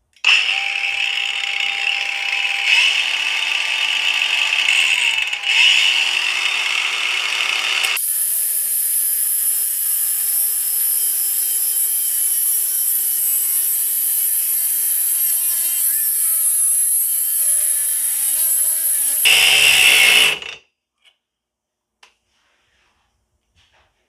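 Cordless brushless 125 mm angle grinder with a cutting disc running at full speed, then from about eight seconds in cutting into a 1-inch steel shaft with a high screech, its motor pitch sagging slowly under the load. It stops abruptly about twenty seconds in, a cut-out the owner puts down to the tool's overheat protection.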